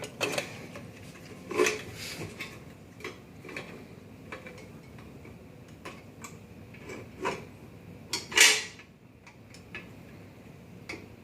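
Plastic and metal parts of a Caravel lever espresso machine clicking and knocking as they are handled and fitted back together, with one louder scraping rustle about eight seconds in.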